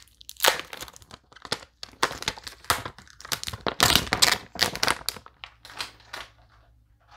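Protective wrapping being unwrapped from a new Samsung Galaxy Z Flip4 phone: irregular crinkling and crackling that goes on for about six seconds, then dies away near the end.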